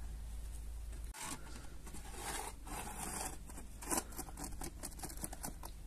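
Rustling and scraping handling noises with many short clicks, one sharper click near the middle, after a steady low hum that cuts off about a second in.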